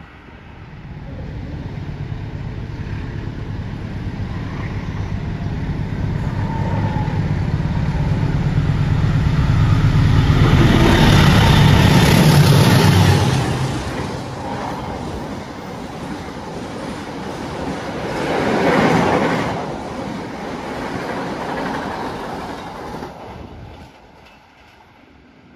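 Diesel-hauled intercity passenger train passing at speed. A low engine rumble builds and peaks about halfway through, then breaks off as the locomotive goes by. The coaches' wheels run past with a second swell and fade out near the end.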